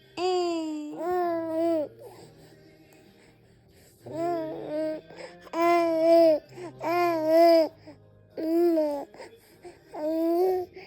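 A baby's fussy, crying-like vocalizations: about seven drawn-out, wavering wails in a row, with pauses between. A faint music track plays underneath.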